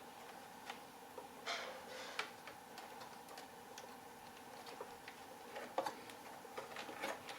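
Scattered light clicks and taps from handling small parts and tools, with a couple of brief rustles, over a faint steady hum.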